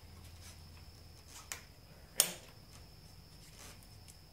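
Drill stopped; a faint click, then one sharp knock about two seconds in, as the drill and hole saw are handled at the rubber snowmobile track. A low hum dies away in the first second.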